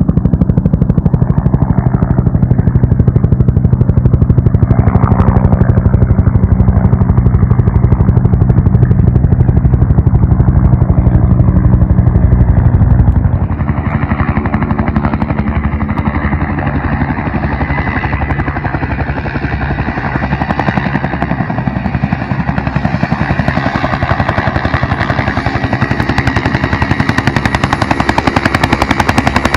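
Helicopter running close by: rapid, steady rotor-blade chop. About halfway through the chop drops in level and a steady high turbine whine comes through.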